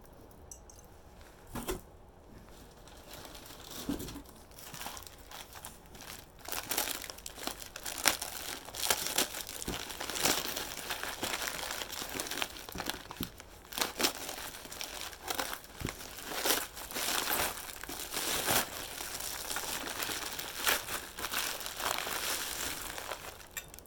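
Packing wrap being crinkled and crumpled by hand as a wrapped item is unwrapped, with a couple of soft knocks at first and then a long, busy stretch of irregular crackling.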